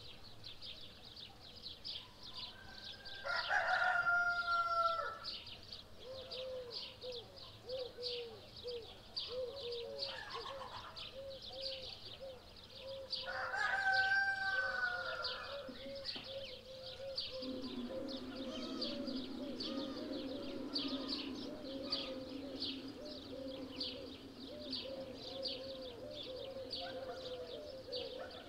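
A rooster crowing twice, about ten seconds apart, each crow lasting about two seconds and the loudest sound here, over continuous rapid chirping of small birds. A low steady hum comes in about two-thirds of the way through.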